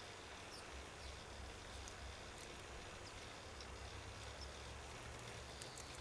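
Faint garden ambience: a steady hiss and low rumble, with a few faint, very short high chirps or ticks from small birds at the feeders scattered through.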